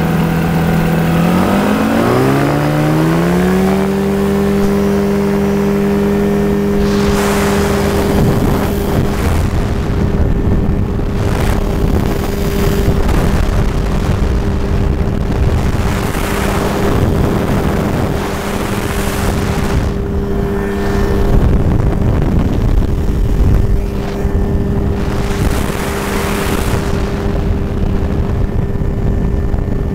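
Microlight trike's engine opening up from a low idle to full take-off power, its pitch rising over about two seconds, then holding a steady full-throttle drone through the take-off and climb. From several seconds in, wind buffets the microphone in repeated gusts over the engine.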